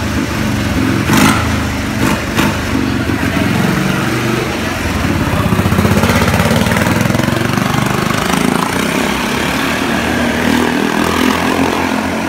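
Motorcycle engine running and revving inside a wooden wall-of-death drum, louder in the middle as the rider speeds up. A few sharp cracks come between about one and two and a half seconds in.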